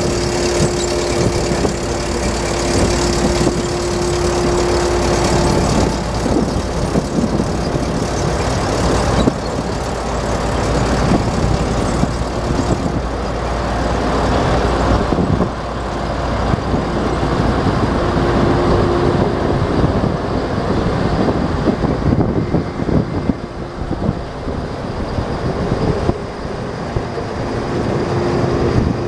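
Gleaner S78 combine's diesel engine running as the combine drives slowly across the yard, with a steady whine that fades out and returns.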